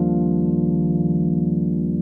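Background music: one sustained chord held steady.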